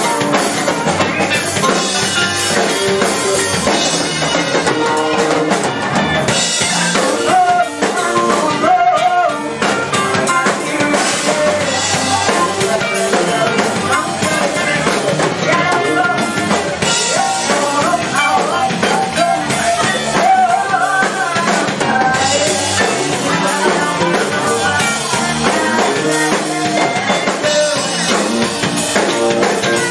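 Live rock band playing at full volume: drum kit, electric guitar and bass guitar, with vocalists singing into microphones, picked up from the audience by a camcorder.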